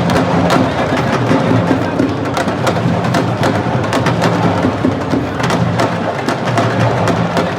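Percussion music: drums struck in a repeating rhythm of sharp strokes, in the manner of Senegalese sabar drumming.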